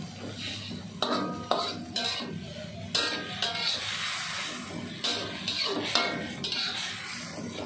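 Metal spatula scraping and clanking against a metal wok at irregular intervals as bitter gourd shoots are stir-fried, with a light frying sizzle underneath.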